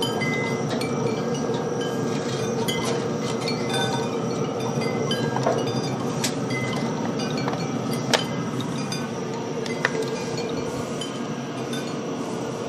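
High, brief chime-like tinkles scattered throughout over a steady hum, with a few sharp metallic clicks, the loudest about eight seconds in, as tongs touch the pellet grill's grates.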